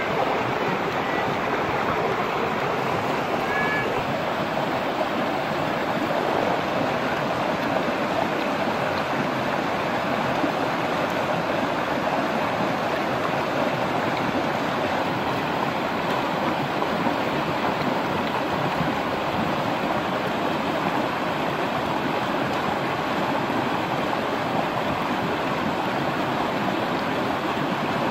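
Fast-flowing river rushing over rapids: a steady, unbroken noise of turbulent water.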